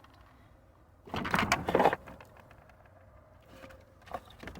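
Hard plastic of a car taillight assembly being handled: a loud scraping rustle lasting just under a second, starting about a second in, then a few faint clicks near the end.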